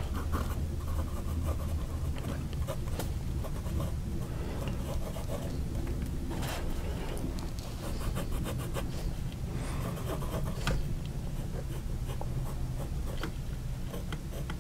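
Fine steel nib of a Wing Sung piston-fill fountain pen scratching across paper as words and then short hatch strokes are written, in quick scratchy strokes over a low steady hum.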